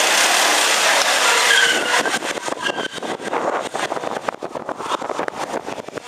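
Go-kart engines running as the karts lap the track: a steady dense drone for about two seconds, with a short rising whine as one revs, then choppy and uneven with irregular crackles.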